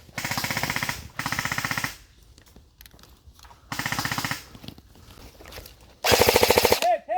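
Airsoft guns firing on full auto: four short bursts of rapid, evenly spaced shots, the last one near the end the loudest.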